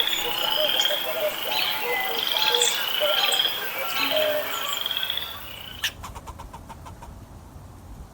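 A chorus of calling animals: rising trills repeat about once a second over scattered chirps, cut off by a sharp click about six seconds in. Then a faint, rapid, even ticking.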